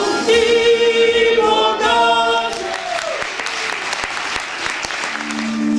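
A small mixed group of men and women singing a Ukrainian folk song unaccompanied ends on a held, falling note about two and a half seconds in, followed by audience applause. A steady instrument tone begins near the end.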